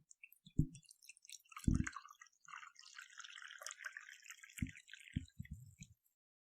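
A few soft thumps with a crackly, dripping patter of small clicks and splashy noise, ending with a quick run of thumps about six seconds in.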